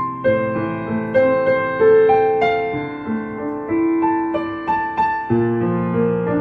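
Gentle, slow music played on a piano or electric piano, single notes over sustained lower notes, each note fading after it is struck.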